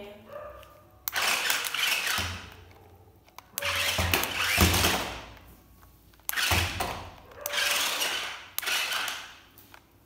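A toy RC stunt car's electric drive motors whirring, with its tyres running over a hard stone tile floor. It drives in about five short spurts of one to two seconds, each starting abruptly.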